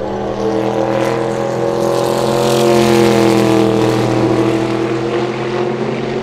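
Sauber Mercedes C11's 5.0-litre twin-turbo V8 passing at speed on a wet track, its note rising as it approaches, loudest about three seconds in, then dropping in pitch as it goes away, with a hiss of tyre spray over the pass.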